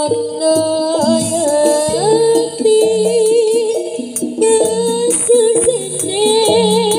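Traditional Javanese-style music playing: a wavering, ornamented melody line over repeated low notes and light percussion.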